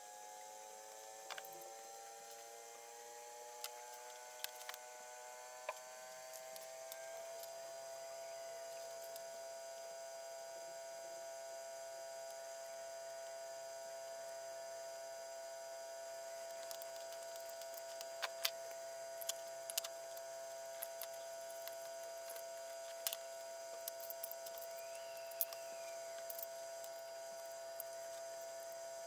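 A faint, steady electrical hum that rises slowly in pitch over the first several seconds and then holds steady. Scattered small clicks sound over it.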